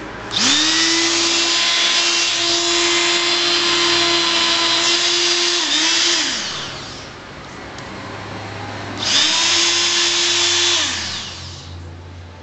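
Black+Decker 200 W electric sheet sander switched on and run unloaded in the hand: the motor spins up quickly to a steady whine with a buzzing hiss, runs about six seconds and winds down, then a second, shorter run of about two seconds.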